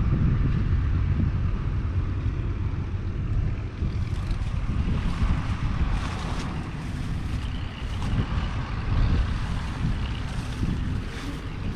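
Allis-Chalmers HD15A crawler's 7.0-litre six-cylinder diesel running at a steady idle, with wind buffeting the microphone.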